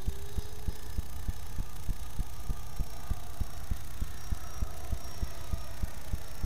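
A faint whine from a Freewing F-15 electric ducted fan jet flying overhead, its pitch gliding slightly, under a louder steady low thumping at about three beats a second.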